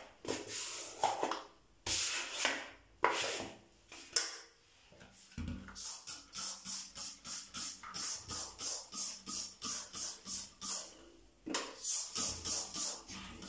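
Hand trigger spray bottle pumped rapidly onto a metal range-hood grease filter: a fast, even run of short hissing squirts, about three a second, starting about five to six seconds in, with a short pause and more squirts near the end. In the first few seconds there are a few separate louder swishes.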